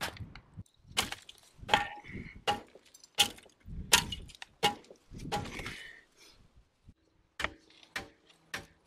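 Short sledge hammer striking a concrete block parapet wall to break a hole through it: about eight sharp blows, roughly one every three-quarters of a second. The blows stop about six seconds in, and a few lighter knocks follow.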